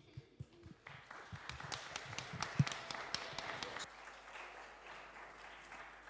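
Audience applauding: the clapping starts about a second in, then thins out and fades away over the last couple of seconds.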